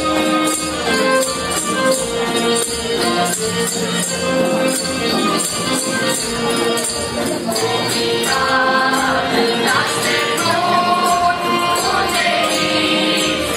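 Mixed folk choir of men, women and children singing a Romanian colind (Christmas carol), with a steady jingling beat underneath.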